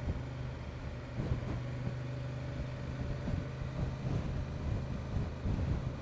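Honda XL750 Transalp's parallel-twin engine running steadily while the motorcycle cruises at a low, even road speed.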